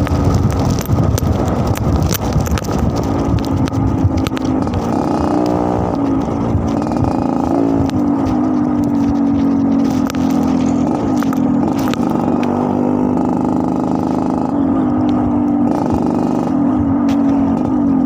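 Yamaha RX-King's single-cylinder two-stroke engine running with its 'ngorok' (snoring) exhaust note: rough and noisy for the first few seconds, then settling into a steady tone that wavers up and down with several light throttle blips.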